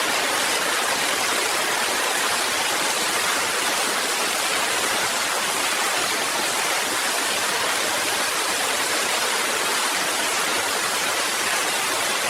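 Steady, even rushing hiss, like running water, that starts abruptly and holds at one level with no rhythm or pitch.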